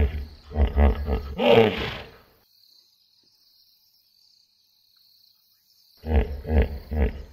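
Hippopotamus calling: a quick run of deep grunts, about four or five a second, ending in a longer drawn-out call. It then cuts to complete silence for about three and a half seconds, and the grunting starts again near the end.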